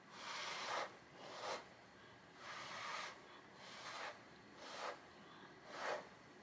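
A person blowing hard at close range onto wet acrylic paint on a canvas, spreading the paint in a Dutch pour. There are six short blows, each about half a second, with brief pauses between.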